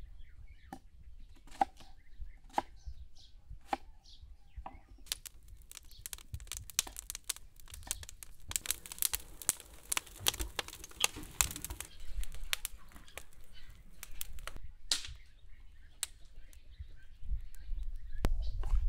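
Crinkling and rustling handling noise with scattered clicks and taps, densest from about five to twelve seconds in.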